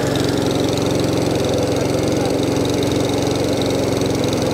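Small petrol engine of a Suffolk Punch 35S cylinder mower running steadily and fairly quietly, a cold start on its first pull after standing unused for about a year.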